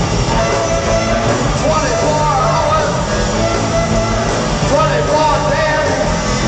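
Live rock band playing loud and steady, with electric guitar, bass and drums, and a singing voice that rises and falls over it twice, recorded through a small camcorder's microphone.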